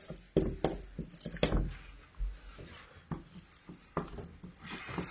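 Whiteboard marker writing on a whiteboard: a run of short scratchy strokes and taps of the felt tip against the board, then a longer rubbing stroke near the end.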